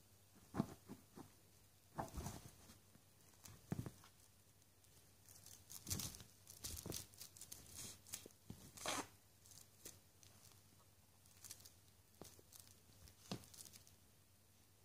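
Faint, irregular rustling and scratching in short clusters: a feather-and-tinsel wand toy brushing and swishing over a plush fleece blanket.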